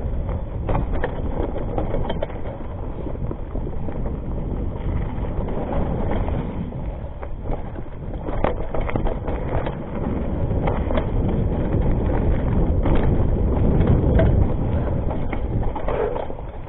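Rockrider ST 520 mountain bike rolling fast down a dirt trail: steady tyre noise over dirt with frequent short rattles and knocks from the bike over roots and stones, loudest a little past the middle.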